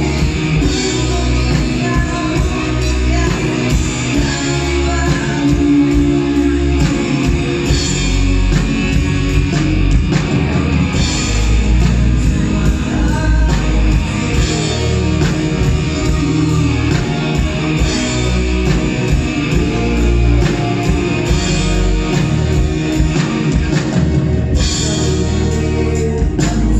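Live rock band playing a song: a male vocalist singing over electric guitars, bass, drums and keyboard, heard from the audience in a large hall.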